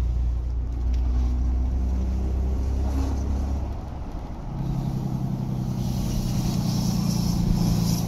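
Ram pickup's 6.7-litre Cummins turbo-diesel with the exhaust brake working as the truck slows. A low rumble, then from about halfway a steady droning tone, heard through an open rear window.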